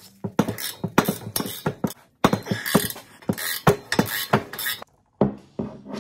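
Hand ratchet wrench clicking in irregular runs of sharp clicks as it works a nut on a wastegate's exhaust flange.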